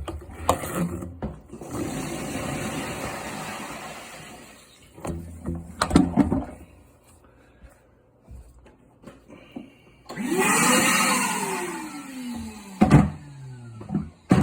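Water being dumped out of a large plastic trash can, rushing and splashing in two long pours, the second changing pitch as it goes, with hollow knocks of the can between and after them.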